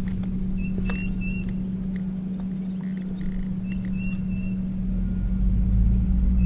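A steady low hum with a low rumble that builds near the end, and short high chirps in little groups of two or three, heard twice.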